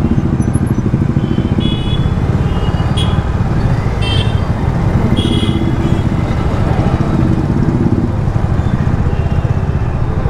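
A vehicle's engine running steadily while driving in traffic, with road noise. A few short, high-pitched horn toots come through, about one and a half, three, four and five seconds in.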